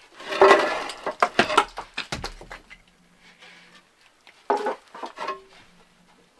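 Clatter of hard objects knocking together: a quick run of sharp knocks over the first few seconds, then a second short burst of knocks later on.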